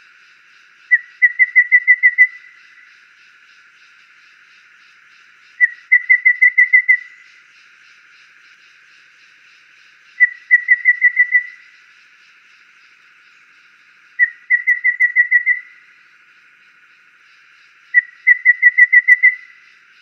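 Golden babbler singing: five phrases about four seconds apart, each a short lead note followed by a quick run of seven or eight clear whistled notes at one pitch.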